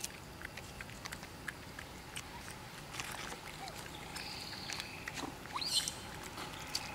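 Quiet outdoor ambience with scattered light clicks and rustles, a brief high steady tone a little after four seconds, and a short sharp rustle near six seconds.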